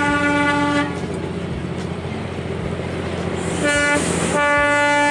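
Darjeeling Himalayan Railway toy train sounding its horn: one steady pitched toot that ends about a second in, then two shorter toots near the end, with the rumble of the train between them.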